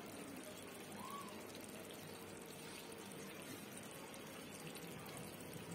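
Faint steady hiss of chicken curry simmering in a kadai on a gas stove.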